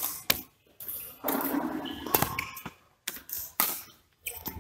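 Badminton doubles rally: a series of sharp racket strikes on a shuttlecock, spaced irregularly, with scuffling movement on the court in between.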